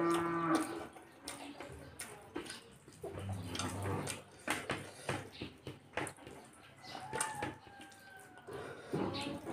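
Close-up hand-eating sounds: fingers mixing rice and pork curry on a plate, with wet chewing and lip smacks, heard as a string of small clicks and squelches. A low, steady hum-like tone sounds for about half a second at the very start.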